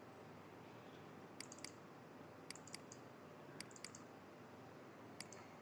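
Computer mouse clicking quietly in small groups of two or three clicks, about once a second, over a faint steady hiss.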